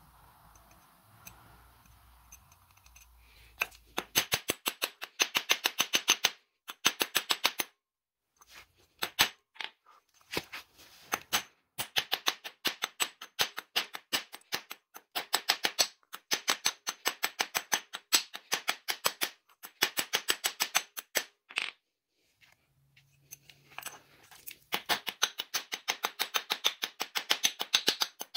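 Hammer peening cold solid rivets on steel, sped up to double speed: rapid runs of sharp metallic taps a couple of seconds long, with short pauses between them, starting a few seconds in.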